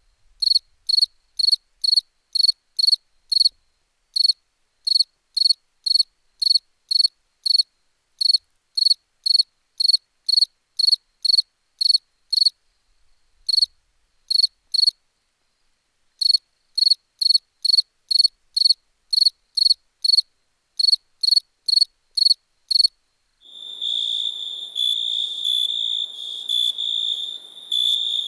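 Cricket chirping in a steady run of short, high chirps, nearly three a second, with a few brief pauses. About 23 seconds in this gives way to a continuous cricket trill.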